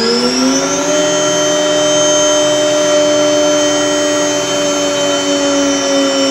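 MultiCam CNC router motor spinning up over about the first second, then running at a steady speed with a high whine.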